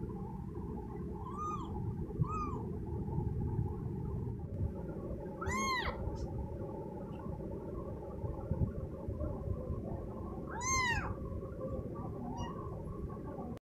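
Kitten meowing: two short mews, then two longer, louder ones that rise and fall in pitch, over a steady low rumble. The sound cuts off suddenly near the end.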